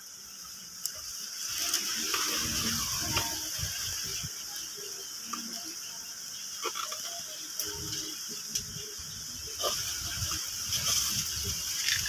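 Irregular scraping, knocking and clicking of a window air-conditioning unit being worked loose in its wall opening, over a steady high hiss.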